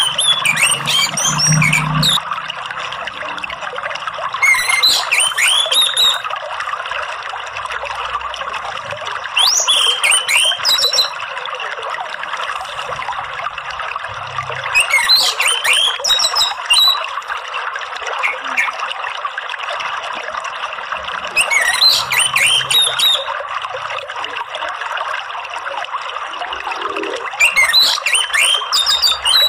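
Orange-headed thrush (anis merah) singing short bursts of whistled, gliding song phrases, six of them about every five to six seconds, over a steady trickle of running water.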